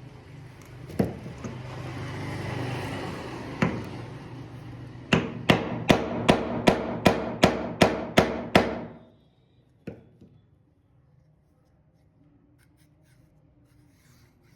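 A rapid run of about ten hammer blows, roughly three a second, after a couple of single knocks and a stretch of rustling handling noise.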